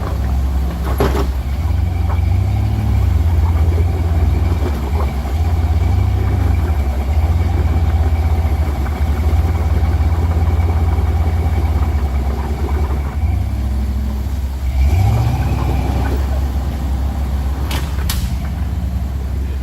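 Vehicle engine running steadily with a faint whine. A sharp knock comes about a second in, and two sharp clunks come close together near the end: leaf-spring slap, which sounds like something breaking.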